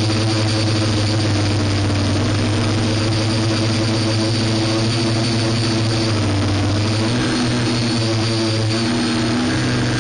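Quadcopter drone's electric motors and propellers humming steadily, with a shift in pitch about seven seconds in and again near the end as the motor speeds change.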